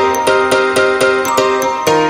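Background music with a steady beat of bright struck notes, about four a second, changing chord near the end.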